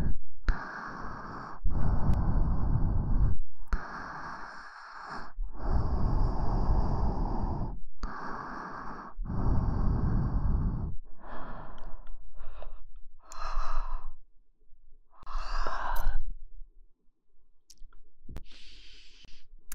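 Close-miked ASMR sounds at the microphone: a series of breathy, rubbing strokes, each a second or two long, with short gaps between them. The strokes grow shorter and more spaced out over the last several seconds.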